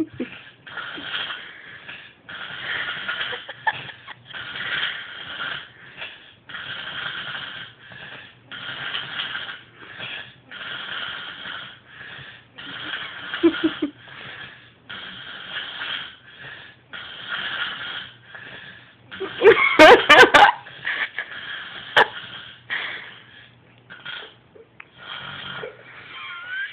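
A woman snoring in a steady rhythm, one raspy wheezing snore about every two seconds, with one much louder burst about twenty seconds in.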